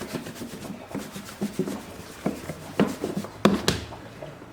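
Scattered knocks and clicks of kitchen containers and utensils being handled, the loudest two close together about three and a half seconds in.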